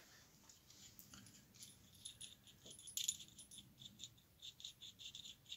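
Faint light metallic clicking and rattling of the small steel parts of a lathe spindle-bore stop being handled and turned in the fingers, a nut being worked on its drawbar. The clicks come in a quick run of about four or five a second in the second half.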